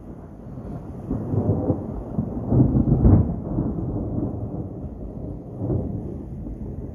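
Thunder rumbling, building about a second in to its loudest around three seconds in, then rolling on and fading with a smaller surge near the end.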